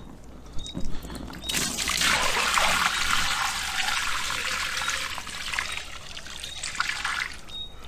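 Water poured from a bucket splashing onto a carp lying on a fabric unhooking mat. The pouring starts about a second and a half in and runs steadily for about five seconds, after a couple of short knocks.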